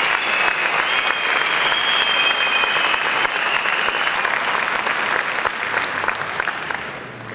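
Large concert audience applauding, dense clapping that fades away near the end.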